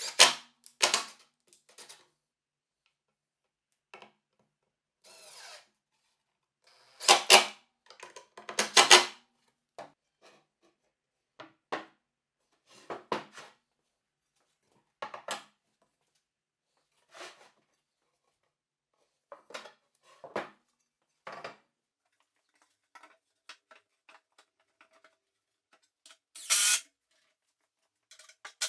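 Power drill or driver running in short bursts of under a second, the loudest twice around 7 to 9 seconds in and again near the end, with scattered brief knocks and clicks of workshop handling between them.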